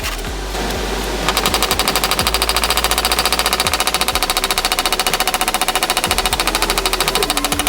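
Rapid, even mechanical clicking at about ten clicks a second, thinner for the first second and then loud and steady.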